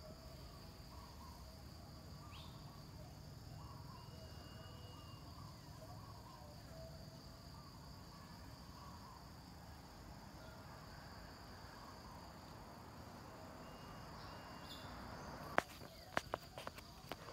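Steady high drone of insects, with faint scattered chirps. A little over 15 seconds in, a sharp knock and a run of smaller clicks as fingers handle the phone.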